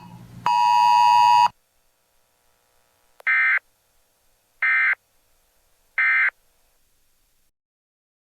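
NOAA Weather Radio receiver output: a loud, buzzy steady tone that breaks off briefly and stops about a second and a half in, followed by three short, identical data bursts about a second and a half apart, the SAME end-of-message code that closes the alert broadcast.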